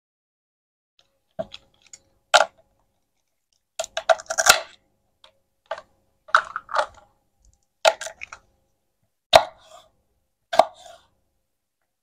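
A plastic toy knife cutting a peeled banana into slices on a wooden cutting board: a series of short, sharp taps and knocks as the blade meets the board, roughly one a second, with a denser patch of crackling about four seconds in.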